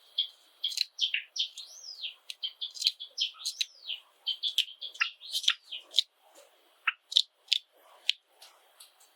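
Java sparrow singing: a rapid string of clicking notes and chirps with quick rising-and-falling glides, lasting about six seconds, then trailing off into scattered clicks.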